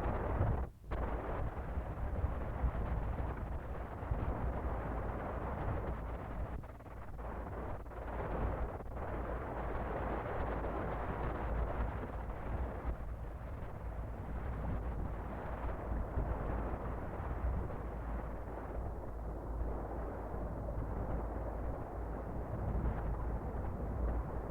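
Wind buffeting the microphone: an unsteady low rumble with a rushing noise above it, rising and falling in gusts.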